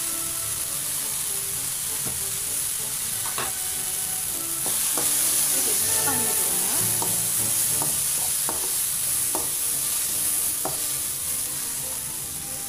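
Onion-tomato masala sizzling in a hot metal kadai as freshly added spice powders are stirred in with a slotted metal spoon, with scattered clicks and scrapes of the spoon against the pan. The sizzle grows louder about five seconds in.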